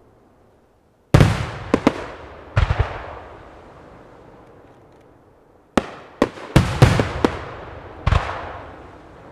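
Aerial firework shells bursting in volleys: sharp bangs about a second in, a group soon after, a dense rapid run a little past halfway and one more near the end, each trailing off in a long rumbling echo.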